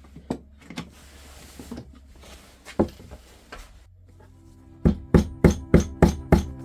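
A few scattered wooden knocks over faint workshop noise, then near the end a music track comes in: steady held notes under a regular percussive beat of about three strikes a second.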